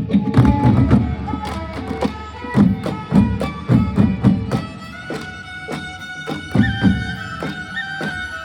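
Traditional Manipuri drumming by pung drummers: clusters of heavy low drum strokes, with sharp strokes between them. A steady pitched melody line is held over the drums, growing stronger about halfway through.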